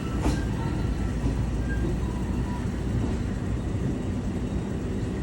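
Jayabaya passenger train running on the rails: a steady low rumble, with one sharp click from the wheels or track shortly after the start.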